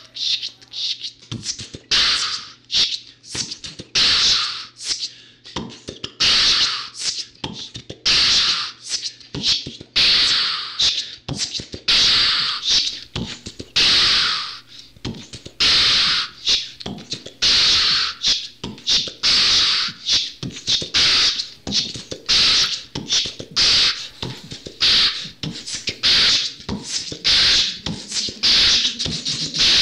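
Beatboxing: mouth-made percussion with sharp hissing bursts every second or two and quick clicks and pops between them, in a loose rhythm.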